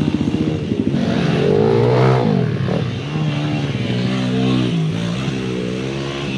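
Pit bike engine revving: a low, pulsing note at first, then the pitch climbs to a peak about two seconds in and falls away, settling into a lower note that rises and dips as the throttle is worked.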